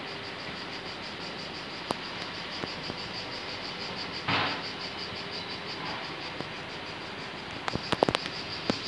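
Cicadas buzzing steadily in a fast, pulsing high drone, with a brief rush of noise about four seconds in and a quick cluster of sharp clicks near the end.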